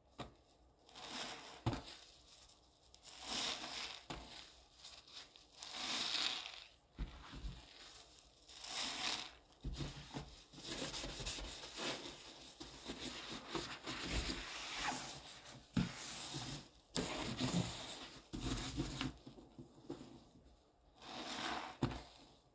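A soap-soaked sponge squeezed over and over in a sink of thick pink lather: wet squelching and crackling foam with each squeeze, in repeated swells a second or two apart.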